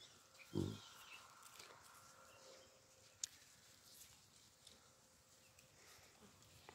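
Near silence, broken by a single short, low grunt from a hamadryas baboon about half a second in. A faint click follows about three seconds in.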